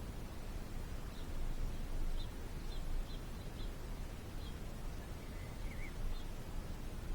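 Small birds giving short, high chirps scattered through, with one brief warbling call a little after five seconds in, over a steady low rumble.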